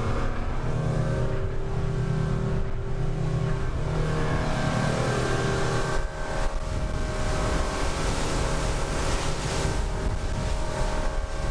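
A small fishing boat's motor running steadily at speed, with the rush of wind and water over the hull. At first it is heard from inside the pilothouse cabin; about six seconds in, the hiss of wind and spray grows louder.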